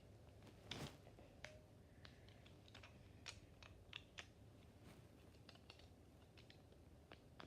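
Faint, irregular clicks and taps of small plastic toy parts and packaging being handled, with a slightly louder cluster about a second in.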